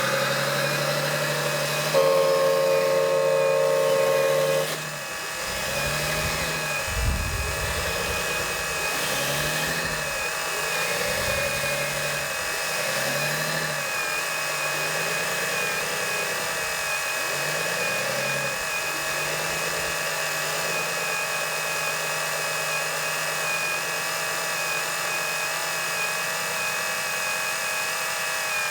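Radio-controlled hydraulic construction models' electric motors whining, their pitch rising and falling in repeated swells every couple of seconds over a steady high whine. A louder steady tone sounds for a few seconds near the start.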